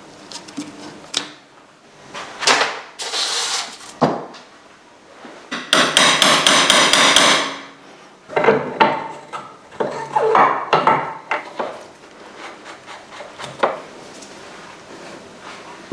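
Metal tools working on motorcycle parts: scattered knocks and metallic clinks, with a rapid run of evenly spaced strokes lasting about two seconds near the middle.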